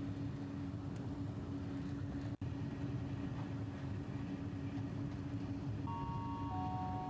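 Steady running noise of a moving passenger train heard from inside the carriage: a low rumble with a constant hum. The sound cuts out for an instant about two and a half seconds in, and a faint chord of held tones sounds near the end.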